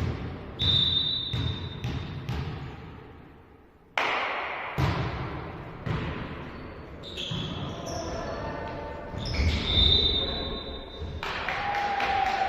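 Volleyball play in a sports hall: the ball is struck and bounces in a string of sharp hits, ringing in the hall. Two short, high, steady whistle blasts come about a second in and again about ten seconds in.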